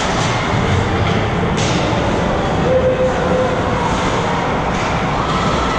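Steady rumbling ice-arena ambience during a hockey game, with a few faint short scrapes or taps from the play on the ice.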